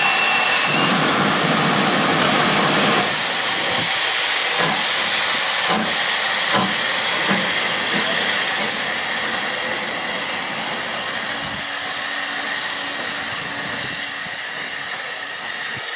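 Southern Railway Q class 0-6-0 steam locomotive No.30541 pulling away with its cylinder drain cocks open: a loud hiss of steam, then exhaust chuffs a little under a second apart, the sound fading as the engine moves off.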